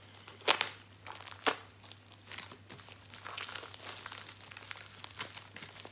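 White plastic wrapping crinkling and rustling as it is pulled open and smoothed flat by hand, with two sharp crackles in the first second and a half, then softer rustling.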